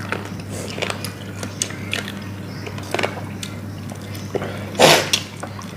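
Eating sounds: people chewing and biting into spicy grilled chicken wings, with scattered small clicks and crunches. A louder short rushing noise comes about five seconds in.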